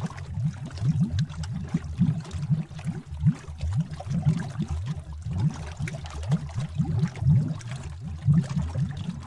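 Bubbling cauldron sound effect: thick liquid bubbling, a dense run of low bubbles popping several times a second without pause.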